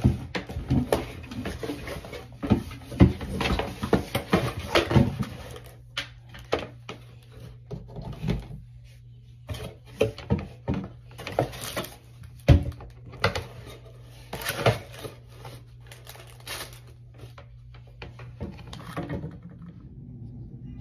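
Irregular clicks, knocks and light clatter of small objects being handled and set down, over a steady low hum; the knocking thins out after about six seconds and stops near the end.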